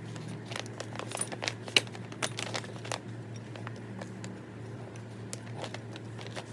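A quick run of sharp clicks over a steady low hum, the clicks bunched in the first half and a few scattered later.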